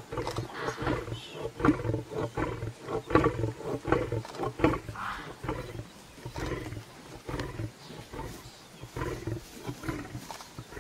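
Male lion growling over its kill in a long run of short, irregular growls, the loudest about two and three seconds in: a lion guarding a carcass from a lioness beside it.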